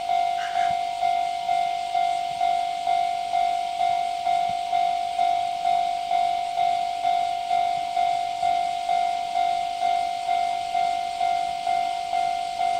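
Railway level-crossing warning bell ringing steadily, about two strokes a second, each stroke a single ringing tone that fades before the next. It signals that a train is approaching the crossing.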